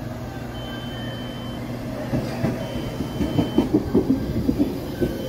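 Baltimore Metro SubwayLink heavy-rail train pulling into the station: a steady hum, then the wheels clatter over the rail joints from about two seconds in, getting louder as the cars pass. A high beep about a second long repeats every two seconds or so.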